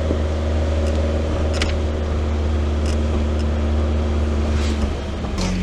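BMW E30 M3's S14 four-cylinder engine idling steadily, its pitch dropping slightly about five seconds in, with a few light clicks.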